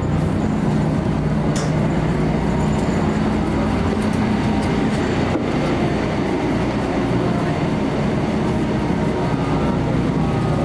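Steady low drone of a moving vehicle heard from aboard, with a constant engine hum under rushing running noise and no change in level.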